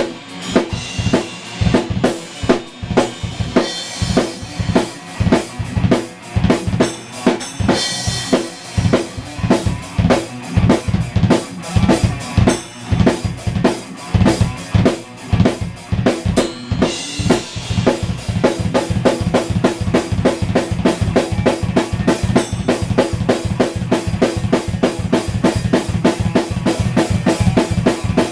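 Drum kit played live in a heavy rock groove, with bass drum and snare hits. About two-thirds of the way through, the beat turns into a fast, even stream of hits.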